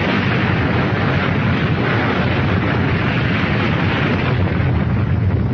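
A loud, steady rumbling noise with no distinct pitch, cutting off abruptly at the end.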